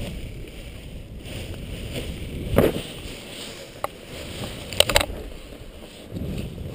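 Wind rumbling on the helmet-mounted microphone of a paraglider pilot as he touches down, easing off through the landing. A few sharp knocks come about two and a half seconds in and again a little before five seconds, as he hits the ground.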